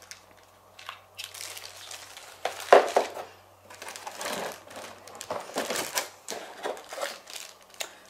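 Plastic packaging bags crinkling and rustling in irregular bursts as parts are handled and lifted out of a cardboard box, loudest about three seconds in.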